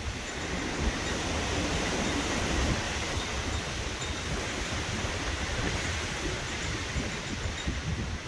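Strong gusting wind roaring through trees: a steady rushing noise that swells a little a couple of seconds in.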